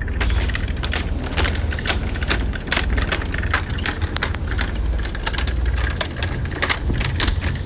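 Water splashing and spattering at a boat's stern as a hooked fish thrashes at the surface on a hand line, a dense irregular crackle over a steady low rumble.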